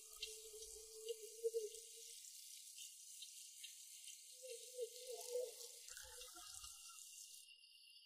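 Faint recorded sound of flowing, trickling water with small drips, the intro effect of a song's backing track. A faint wavering tone comes in twice, at the start and around five seconds in.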